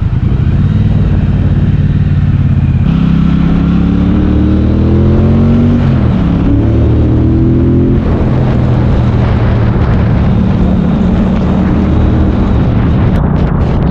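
Triumph Bobber's 1200 cc parallel-twin engine ticking over, then opening up about three seconds in and rising in pitch as the bike pulls away. There is a short dip around six seconds in at the gear change, then another climb. From about eight seconds in it gives way to a steady spread of engine, wind and road noise at speed.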